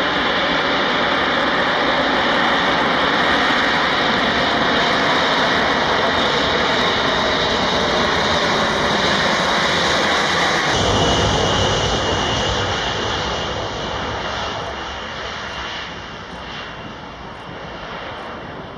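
Eight TF33 turbofan engines of a B-52 Stratofortress running at takeoff power: loud, steady jet noise as the bomber rolls down the runway and lifts off. About eleven seconds in, a deeper rumble comes in, and the sound then fades as the aircraft climbs away.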